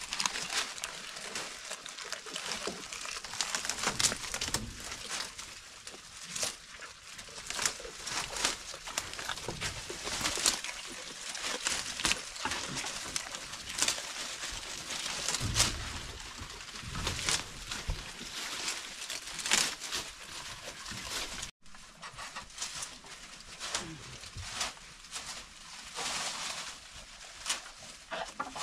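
Goats pulling and chewing leaves off fresh leafy fodder branches in a wooden rack, the leaves rustling and crackling irregularly.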